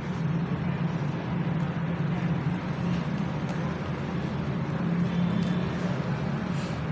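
Steady low hum over a constant noisy background, with a few faint clicks.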